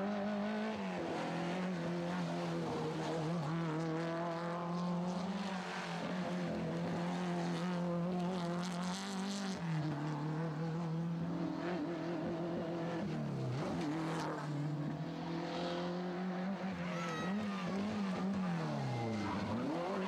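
Talbot Samba F2000 rally car engines running at high revs through corners. The note is held steady for seconds at a time, then drops and climbs again a couple of times as the driver lifts off and picks up. A short hiss of tyre noise comes about eight seconds in.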